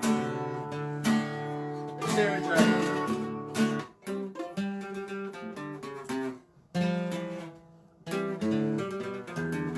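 Acoustic guitar strumming chords in a punk-folk song, the playing stopping briefly twice in the second half, with a few short vocal interjections.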